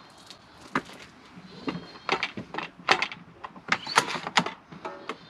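Irregular clicks and knocks of a wheeled portable inverter generator being rolled over concrete and set down, its plastic case and telescoping handle clattering.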